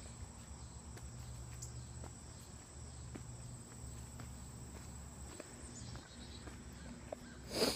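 Footsteps along a woodland trail with a steady high chirring of insects, and a brief louder rustle near the end.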